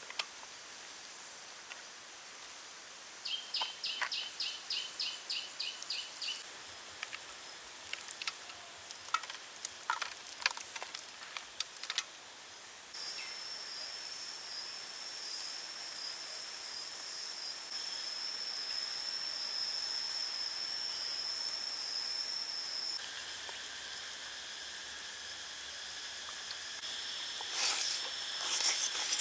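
Outdoor insect drone: a steady high shrill that shifts pitch partway through, with a quick run of about a dozen high chirps a few seconds in. Scattered light clicks of utensils against the dish, with more clicking near the end as the food is eaten with chopsticks from a small bowl.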